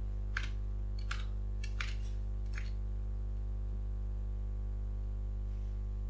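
Samsung top-load washing machine's control panel giving four short beeps about 0.7 s apart as the cycle button is pressed to step through the wash programs, over a steady electrical hum.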